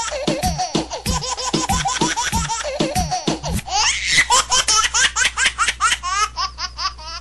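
A funny laughing ringtone: high giggling laughter repeated in quick rhythmic bursts over music, about four a second, turning about four seconds in to a run of quick rising chirps.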